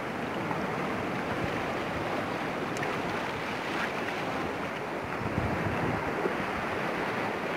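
Sea surf washing steadily over shore rocks, with wind buffeting the microphone in low gusts from about five seconds in.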